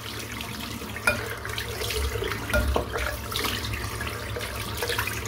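Water running into a sink and splashing irregularly as hands scoop it up to rinse off after a wet shave.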